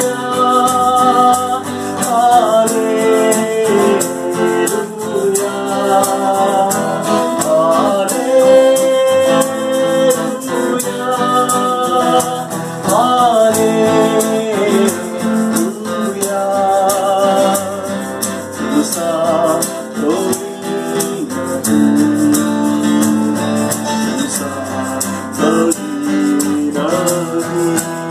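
A man singing a Hindi Christian worship song to a strummed acoustic guitar, the melody carried steadily over regular chord strums.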